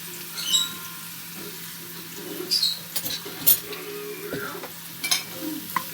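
Crushed garlic frying in ghee in a pan, sizzling steadily, while a spoon knocks and scrapes against the pan several times as it is stirred.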